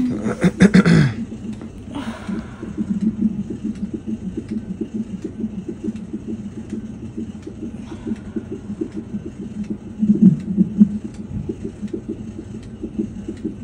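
A woman in labor moans through a contraction, her voice falling in pitch over the first second, with a breathy exhale soon after and another short low groan about ten seconds in. Under it a steady, fast-pulsing low rumble runs on.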